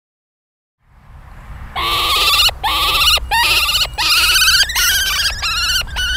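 A bird of prey calling in a loud, rapid run of wavering calls, each about half a second long. The calls begin about two seconds in, over a low steady rumble.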